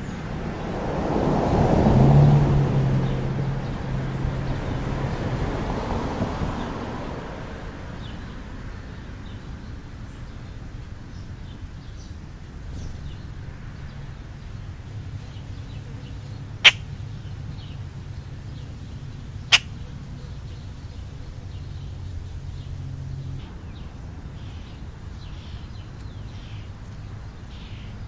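A vehicle passing on the road, its hum swelling to a peak about two seconds in and fading over the next few seconds, followed by a low steady traffic hum. Faint chirps of small birds are heard, along with two sharp clicks in the middle.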